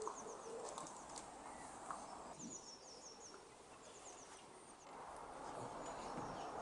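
Faint outdoor background hiss with a bird singing short runs of quick, high, falling notes, three times.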